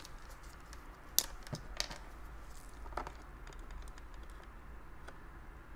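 Light clicks and taps of multimeter test probes being handled: plastic probe tip caps pulled off and set down, and probe tips placed on a circuit board. The sharpest click comes about a second in, with a few smaller ones after.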